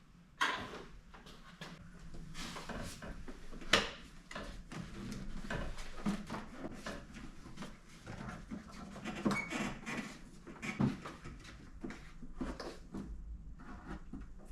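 Plastic air filter housing and filter being handled: scattered clicks, knocks and rustling, with one sharper click about four seconds in.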